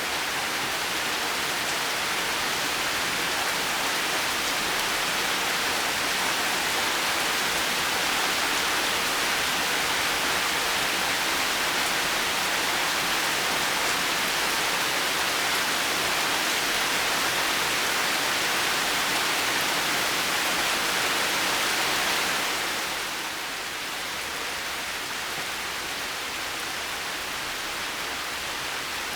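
Heavy rain falling steadily as an even hiss, dropping a little in loudness about three-quarters of the way through.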